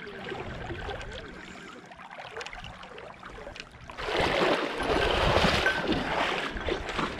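Water sloshing around a person's legs as he wades through shallow creek water, turning into loud splashing footsteps about four seconds in as he strides out toward the gravel shore.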